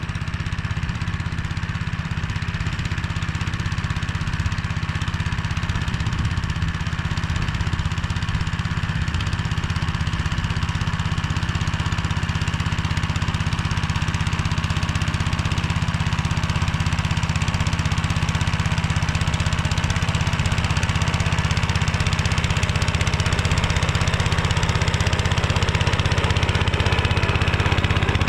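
Engine of a Motor Sich walk-behind tractor running steadily while it drives a rotary tiller through the soil. It grows slightly louder over the stretch.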